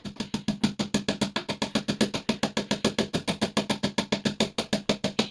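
Background music with a fast, even percussive beat, about eight strokes a second, over a steady low tone.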